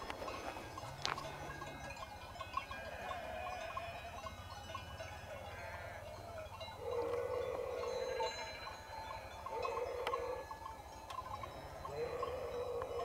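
A flock of sheep wearing bells: many small bells clink and ring without pause. In the second half one sheep bleats loudly three times, each call about a second long.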